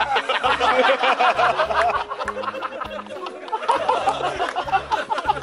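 People laughing and chuckling over edited-in background music with a steady bass beat.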